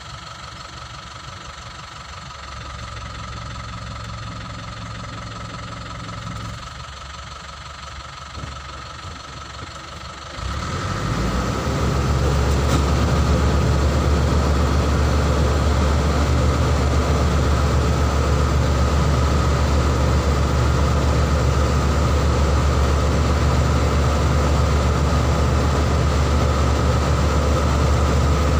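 Vehicle engine idling quietly. About ten seconds in it jumps to a much louder steady low drone that holds without rising or falling.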